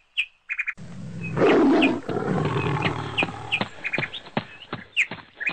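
A tiger-like roar, loudest about a second and a half in and trailing off, with repeated short bird chirps and sharp clicks around it.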